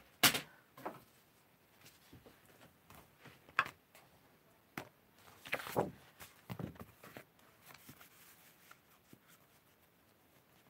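Paper and card being handled on a craft desk: a sharp click just after the start, then scattered light taps and short rustles as a stamped sheet is lifted and laid onto a card mat.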